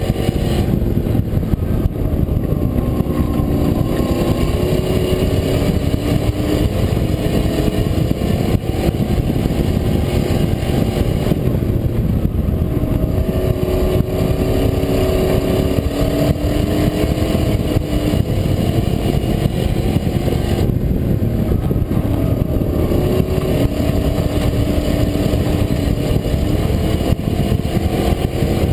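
A racing pickup truck's engine at full race load, heard from the truck's own bed, its pitch rising and falling several times as the driver accelerates and lifts around the dirt oval, over a constant low rumble.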